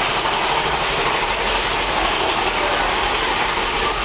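Big Thunder Mountain Railroad mine-train roller coaster rattling along its track, a steady loud rumble and clatter of wheels on rails.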